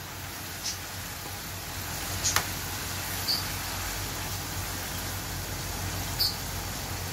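Pieces of marinated beef sizzling in melted butter in a nonstick karahi while being sautéed, with a few light taps and scrapes of a spatula against the pan as they are stirred.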